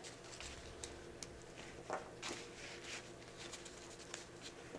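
Faint rustling and small clicks of hands handling a 1/6 scale action figure, working its leather-look duster coat off, over a steady low hum.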